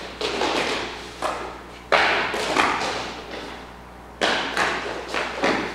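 Feet stamping and landing on a wooden floor during kung fu footwork: an irregular run of sharp thuds, each fading away with a short echo, with a lull about halfway through.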